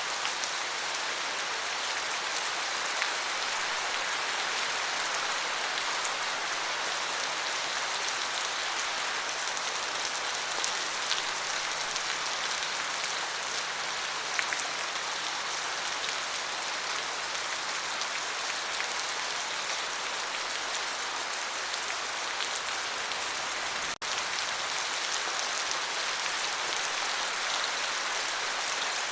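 Steady rain falling: an even, dense hiss of many drops, with a few individual drops ticking through it. The sound drops out for an instant near the end.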